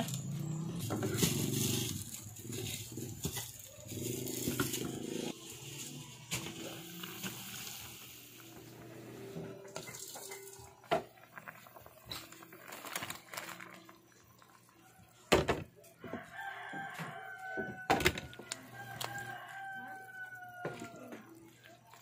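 Broth boiling in a pan with a soft hiss, broken by a few sharp knocks. Near the end a rooster crows twice, each a long, slightly falling call.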